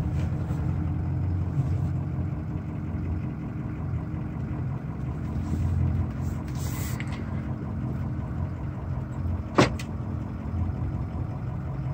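Engine of an old, high-mileage pickup truck running steadily as it backs up, heard from inside the cab, with one sharp click about ten seconds in.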